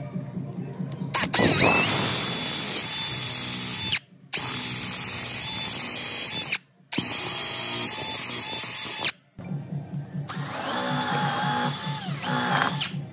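Electric hand drill boring into a wooden tabletop, running at speed in several runs a few seconds long, each cut off abruptly. In the last run the whine steps up in pitch.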